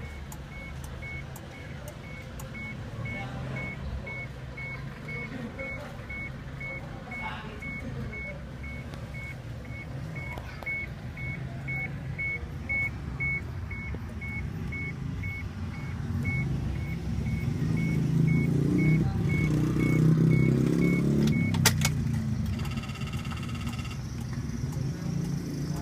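Suzuki Every EFI van being cranked at a hard start, with a steady electronic warning beep repeating about two to three times a second. The cranking grows louder in the last few seconds, then the beeping and cranking stop together with a sharp click.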